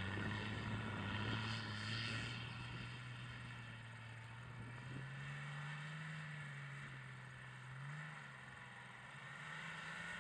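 Nissan Patrol GR Y60's 2.8-litre turbodiesel engine running under load as the 4x4 slides in circles on snow. Its pitch steps up about halfway through and rises briefly near the end, with a hiss in the first couple of seconds.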